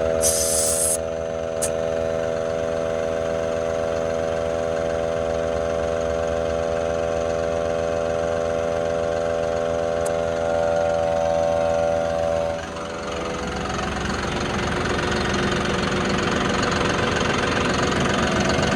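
John Deere 5075E tractor's diesel engine idling steadily, with a small portable air compressor running, while a tire bead is being seated with air. A short hiss of air comes in the first second, and about two-thirds of the way through the steady hum gives way to a broader rushing sound.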